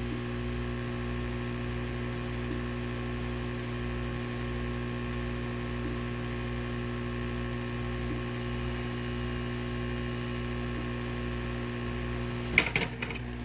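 Heat gun running with a steady electrical hum while the glass is heated to soften its adhesive. About a second before the end comes a short clatter of sharp clicks.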